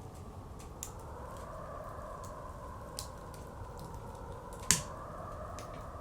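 Wood fire crackling with scattered sharp pops, one much louder pop near the end, over blizzard wind blowing steadily and swelling now and then.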